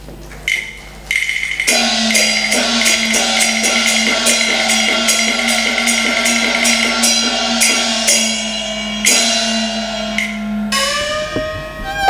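Cantonese opera instrumental introduction: a percussion section with wood block and drum strikes in a fast, steady rhythm, over sustained tones. Near the end bowed strings come in with sliding notes.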